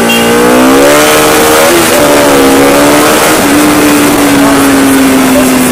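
Bajaj Pulsar RS 200's single-cylinder engine revving hard under acceleration, its pitch climbing for about half a second and then holding high and easing off slowly as the motorcycle cruises, with wind rushing over the helmet-camera microphone.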